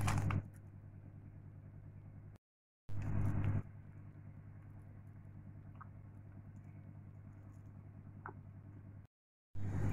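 A steady low machine hum, like a kitchen appliance motor, cut off to silence twice for a moment. Each stretch opens with a short loud rush of noise, and a couple of faint taps of the stirring spoon against the pan come through.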